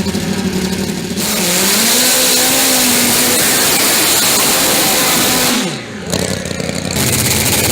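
An engine revving, its pitch rising and then falling away steeply about six seconds in, under a loud rushing noise that switches on and off abruptly.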